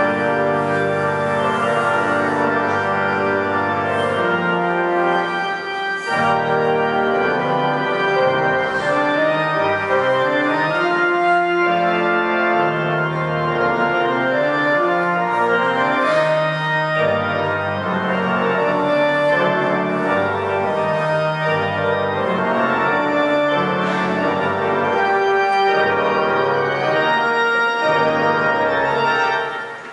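Organ playing a Christmas fantasia: full, held chords over a moving bass line, with a brief break just before the end.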